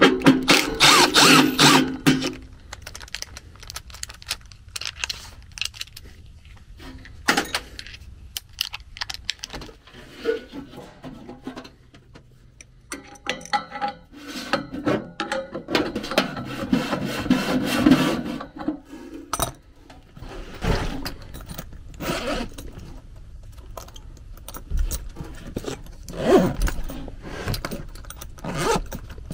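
Metal clinking and scraping of a wrench working on the blower wheel's hub and steel housing as the wheel is freed from the motor shaft, with louder spells of clatter in the first couple of seconds and again midway. Near the end, tools rattle in a tool bag.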